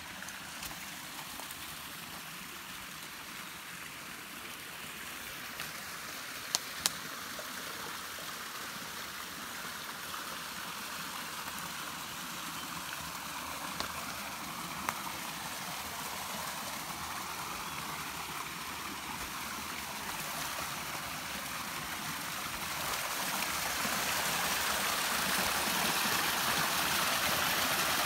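Forest stream running steadily, growing louder near the end where water pours out of a spout into the stream. Two sharp clicks come about six and a half seconds in.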